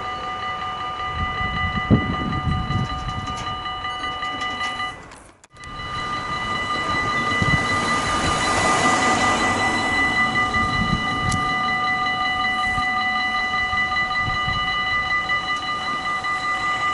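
Dutch level-crossing warning bell ringing steadily, with its audio cut out briefly about five seconds in. A car drives over the crossing about eight seconds in.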